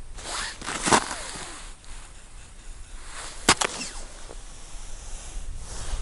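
Handling noise: a winter jacket rustling as an arm moves, with two sharp clicks, one about a second in and a louder one a few seconds later.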